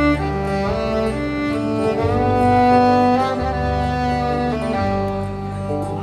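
Fiddle playing a melodic instrumental break in a live country-folk song, long sliding notes over sustained low bass notes.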